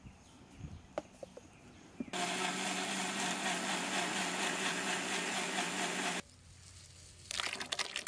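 Electric mixer grinder with a steel jar running for about four seconds, blending milkshake; it starts suddenly and cuts off sharply. Near the end, milkshake splashes as it is poured into a large metal pot.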